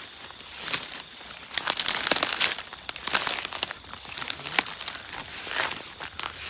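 Rustling and crunching of dry leaves and undergrowth under footsteps, in irregular crackling bursts that are densest about two seconds in.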